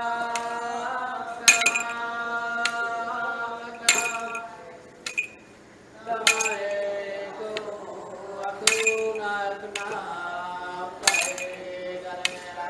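Iban timang chant: a man's voice holds long drawn-out notes, and the ritual staffs clink sharply each time they strike the floor, about every one to two seconds. The chanting pauses briefly about five seconds in, then resumes.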